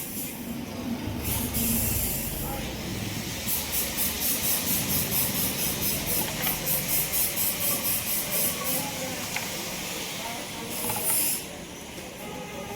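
Hissing in short bursts, then a quick run of even pulsed hisses, about four a second, and one more loud hiss about eleven seconds in.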